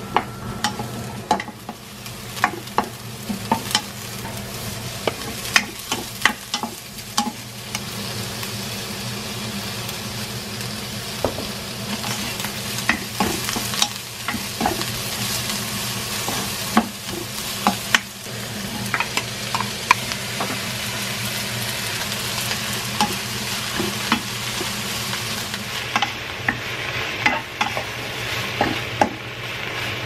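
Oil sizzling in a Tefal nonstick wok on high heat as green onion, onion, fish cake and mushrooms are stir-fried, with frequent clicks and taps of a spatula against the pan. The sizzle grows louder about eight seconds in.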